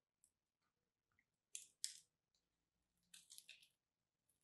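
Small blade scraping and cutting into a crosshatch-scored bar of soap: two short crisp scrapes about one and a half seconds in, then a few more around three seconds in.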